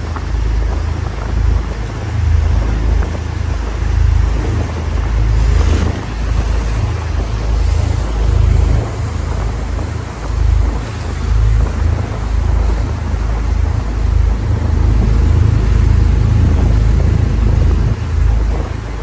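Wind buffeting the microphone on a moving boat, a heavy fluctuating rumble over the steady rush of the boat's motor and water.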